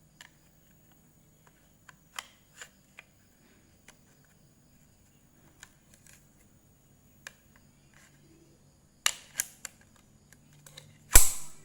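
Handling noise: scattered light clicks and taps, a quick run of louder clicks about two-thirds of the way in, and one loud knock just before the end.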